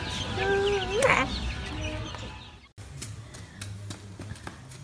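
Baby chick peeping: rapid, high, short cheeps, with a child's voice sliding up in pitch about a second in. The sound cuts off after nearly three seconds, and what follows is quieter, with a few faint taps.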